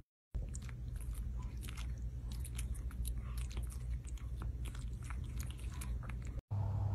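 Small kittens making faint, irregular clicking and smacking mouth sounds, like chewing, over a steady low hum.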